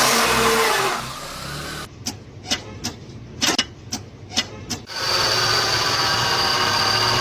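Car noises from separate recordings in turn: first a loud rushing noise, then about eight sharp, irregularly spaced clicks or knocks, then from about five seconds in, steady running with a high, thin whine.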